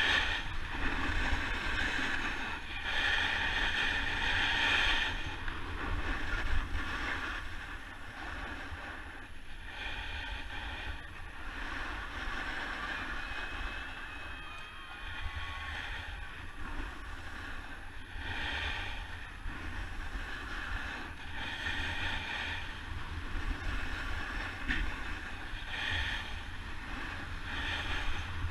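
Snowboard running fast down a packed slope: the board's edge scraping and hissing on the snow, swelling with each turn, over a steady low rumble of wind on the microphone.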